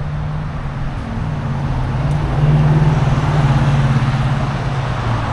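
A motor vehicle's engine hum with street traffic noise, growing louder about halfway through and easing off again as the vehicle goes by close.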